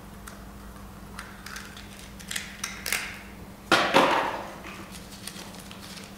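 Light clicks and paper crinkling as a folded draw slip is taken from its small ball and unfolded by hand, with one louder sudden sound about four seconds in.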